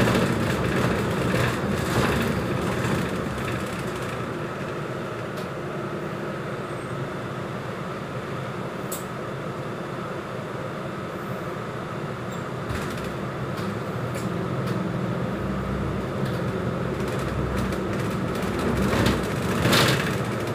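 Inside a moving city bus: the engine and road noise run steadily, with a few knocks and rattles. The engine grows louder over the last few seconds.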